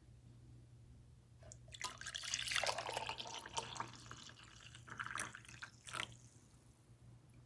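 Water pouring and splashing, starting about a second and a half in and tailing off near six seconds, over a faint steady low hum.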